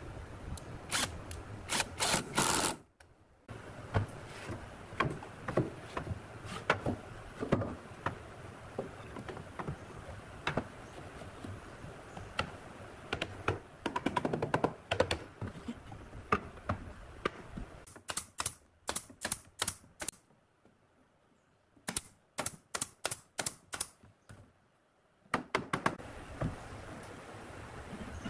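Hammer knocking pine boards into a cabinet frame: runs of sharp wooden knocks, several a second, broken by a couple of brief silent gaps.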